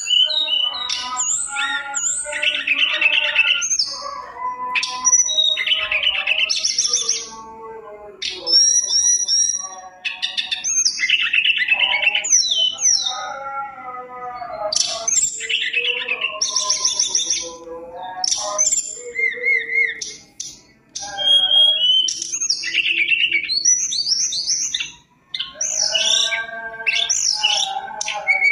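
A caged tledekan gunung (hill blue flycatcher) in full song: long, varied phrases of clear whistles, quick trills and rising and falling sweeps, with brief pauses between phrases.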